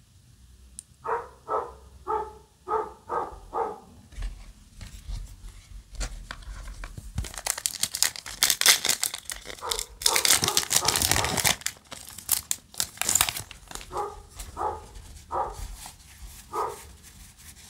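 Foil Yu-Gi-Oh! booster pack crinkling as it is torn open and unwrapped, loudest in the middle. Before and after it come two runs of short, evenly spaced calls, about two a second.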